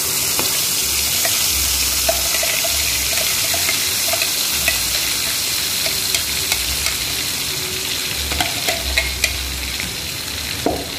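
Wet blended spice paste sizzling in hot oil in a wok: a steady frying hiss with scattered pops and spits, more frequent near the end. This is the first stage of sautéing the paste, as the water in it boils off into the oil.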